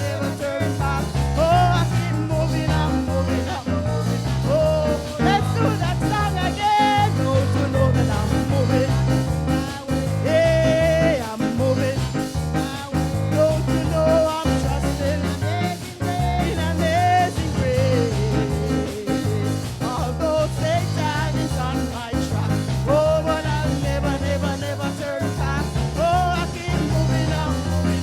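Worship music with singing over a band with a steady, repeating bass line.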